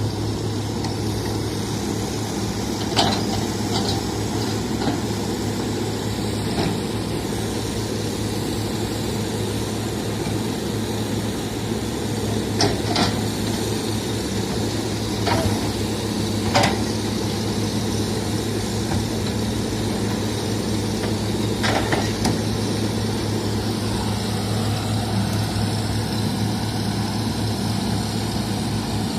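Heavy-equipment diesel engine running steadily, with a few sharp metallic clanks scattered through it.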